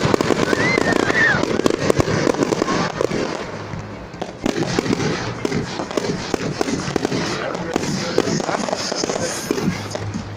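Fireworks display: a continuous barrage of bangs and crackling reports, with a short whistle that rises and then falls in the first second or so.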